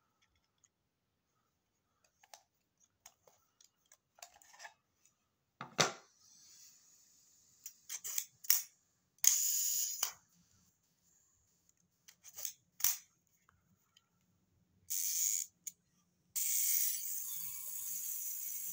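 Handling noise from a FED 5 rangefinder camera: scattered small clicks of metal parts, one sharp click about six seconds in, and short scraping and rubbing noises. A steady hiss sets in near the end.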